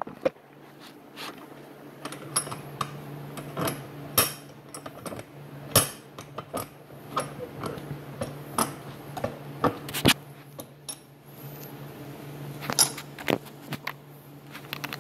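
Irregular clattering and knocking of hard objects being moved and handled on a cluttered workbench, over a steady low hum.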